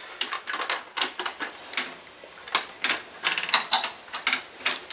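An irregular series of sharp plastic clicks and knocks as the front control panel of an HP LaserJet Pro 400 color printer is pulled and worked against its housing; it will not come free because a hidden screw still holds it.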